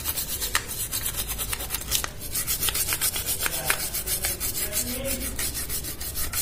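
Small brush scrubbing a TV motherboard (circuit board) to clean off carbon deposits: quick, scratchy bristle strokes, about five a second.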